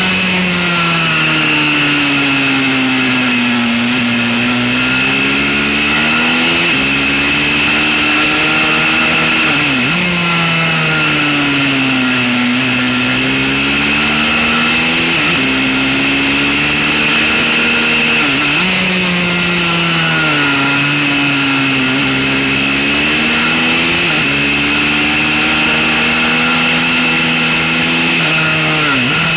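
Pit bike engine at racing revs on a track lap, its pitch climbing and falling through the corners with several sudden drops at the gear changes. Wind rush runs under it.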